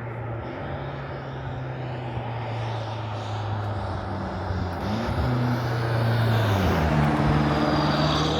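Straight-piped BMW F90 M5 twin-turbo V8 running under way as a steady drone. Its pitch shifts about five seconds in, then steps up and gets louder near the end.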